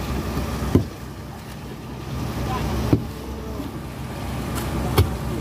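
Fishing boat's engine running steadily under way, a low drone with the rush of water alongside, broken by a few sharp knocks on deck.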